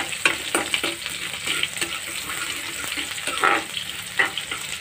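Metal spoon scraping and stirring chopped onion, mustard seeds and curry leaves frying in hot oil in an aluminium kadhai: irregular scrapes over a steady sizzle.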